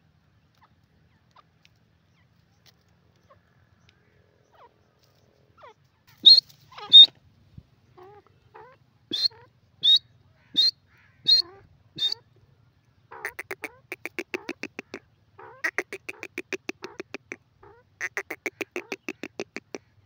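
Grey francolin calling. First seven sharp, high-pitched notes, the last five about 0.7 s apart. Then, from about two-thirds of the way in, rapid rattling runs of notes, several a second, in three bursts of about two seconds each.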